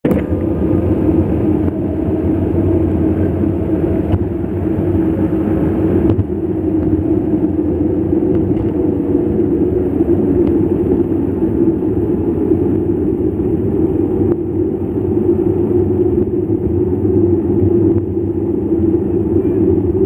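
Steady, muffled wind and road noise on a handlebar-mounted camera as a mountain bike rolls along asphalt, with a low hum underneath and a few light knocks from the bike going over bumps.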